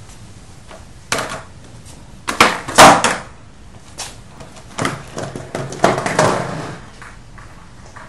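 Skateboard clattering on concrete: a series of sharp knocks and rattles, loudest about three seconds in and again around six seconds.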